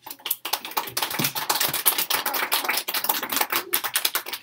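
A group of children clapping: a few scattered claps build quickly into dense applause, which thins out near the end.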